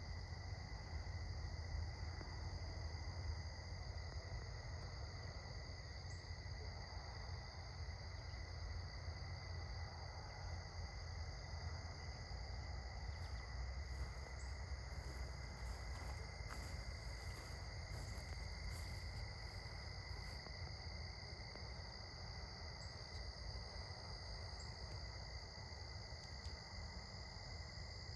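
Crickets chirping in a steady, continuous high trill, over a low rumble.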